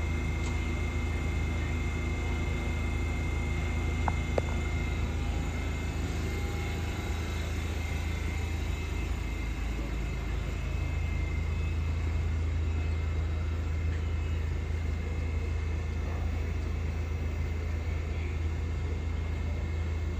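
R68 subway car standing in the station with its doors open, its onboard equipment giving a steady hum: a strong low drone with a faint high whine over it. Two light clicks about four seconds in.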